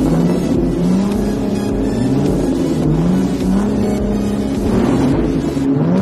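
Car engine revving over and over, each rev a rising sweep in pitch about every second and a half, over a steady low rumble.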